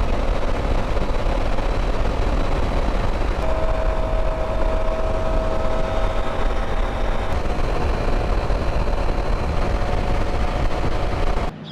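KTM 790 motorcycle cruising at highway speed: loud, steady wind rush and road noise with a low drone and a faint steady whine. It cuts off abruptly near the end.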